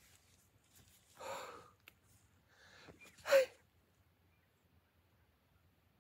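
Two short, forceful breathy bursts from a person's mouth, sharp exhalations during movement practice: one about a second in, and a louder, shorter one about three seconds in.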